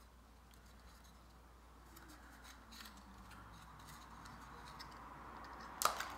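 Faint handling of small laser-cut wooden kit pieces being fitted together: light clicks and rubbing, with one sharper click near the end.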